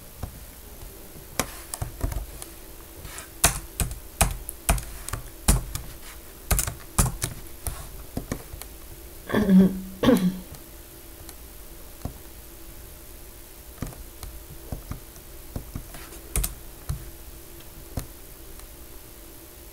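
Computer keyboard typing: a quick run of key presses for the first several seconds, then scattered single presses later. A short vocal murmur comes about ten seconds in.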